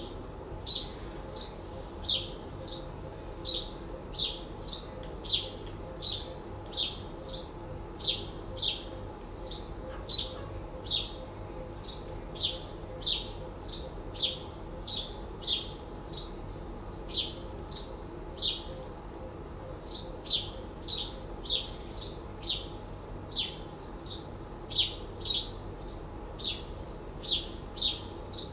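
A pet green parrot chirping over and over, short high chirps at an even pace of roughly two a second.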